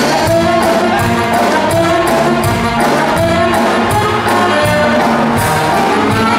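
Orchestral music with brass and a steady beat.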